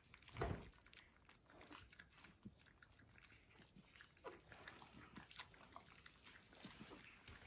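Faint wet suckling and smacking from 17-day-old puppies nursing on their mother, with small rustles of bedding and one louder soft bump about half a second in.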